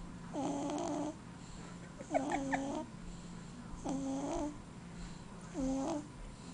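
Steady snoring in sleep: four pitched snores, one about every 1.7 seconds, each lasting under a second.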